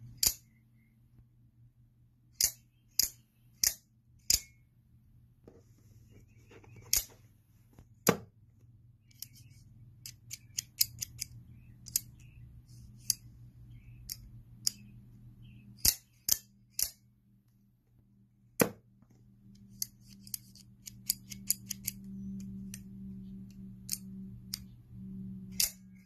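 ElitEdge out-the-front automatic knife's spring mechanism clicking as the knife is reset: sharp metallic snaps as the slider is worked and the blade fires and locks. About a dozen loud snaps come at irregular intervals, with quicker runs of fainter ticks in between.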